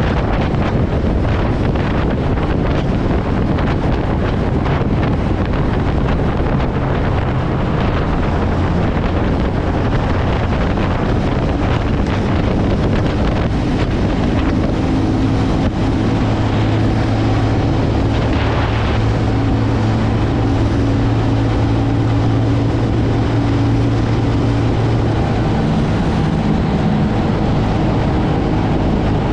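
TVS Ronin's single-cylinder engine running steadily while riding, with wind rushing over the microphone. The engine's steady hum comes through more clearly from about halfway through.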